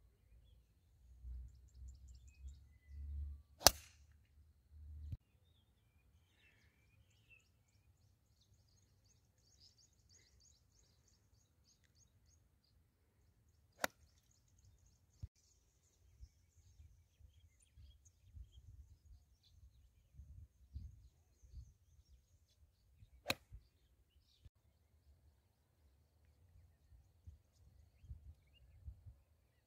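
Three sharp cracks of a driver clubhead striking a golf ball off the tee, about ten seconds apart, the first the loudest. A low rumble runs underneath.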